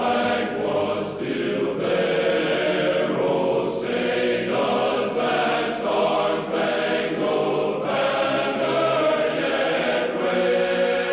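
Choral music: many voices singing long, held chant-like notes, the chords shifting every second or two.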